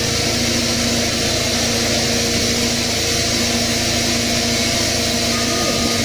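Tunnelling machinery running steadily near the face: a constant engine drone with a steady hum and a high hiss, unchanging throughout.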